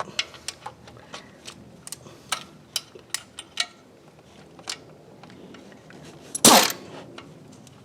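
Hand ratchet clicking in short, uneven strokes as a spool valve bolt is backed out, then one loud metallic clank about six and a half seconds in.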